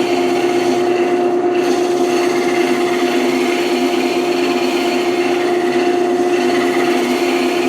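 Wood lathe running with a steady motor hum while a turning tool scrapes the spinning wood. The scraping eases briefly about a second in, then carries on.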